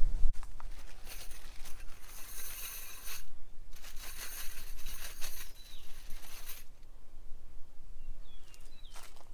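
Scratchy scraping and rustling of wire as a fence clip is fastened to a steel T-post low on a woven wire fence, in two stretches of a couple of seconds each. A few faint bird chirps come near the end.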